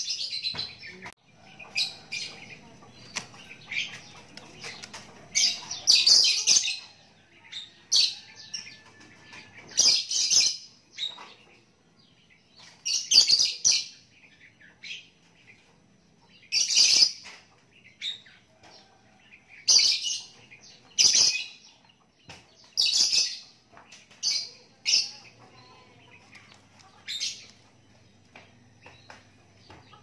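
Young Javan myna calling: short, high-pitched calls repeated every one to three seconds, dying away a few seconds before the end.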